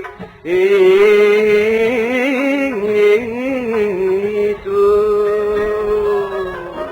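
Chaabi music: a male vocalist holds a long, wavering, ornamented sung note without words over the accompaniment, with one brief break about four and a half seconds in.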